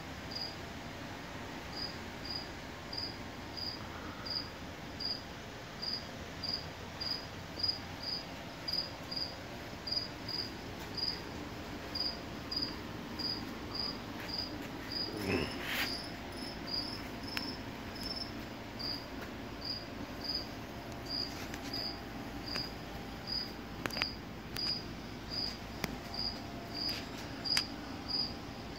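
A cricket chirping steadily, short high chirps about twice a second. About halfway through there is one brief sliding sound that rises in pitch.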